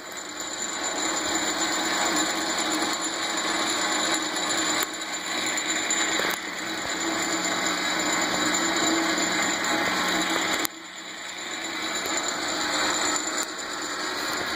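A restored 1941 South Bend 9-inch Model A lathe running steadily under power from its original Westinghouse 1/2 horsepower three-phase motor on a VFD set to 90 Hz: an even whir of motor, belts and gearing. About ten and a half seconds in the sound drops abruptly and then builds back up.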